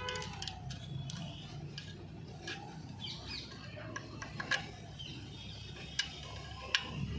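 Scattered light metal clicks and scrapes of a screwdriver prying at the brake shoe springs and adjuster of a drum brake, the sharpest clicks in the last few seconds.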